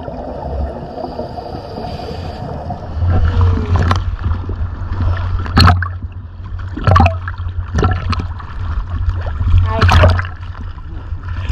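Gurgling water for about the first three seconds. Then choppy sea water splashes and slaps against a camera bobbing at the surface, in a handful of sharp splashes over a steady low rumble.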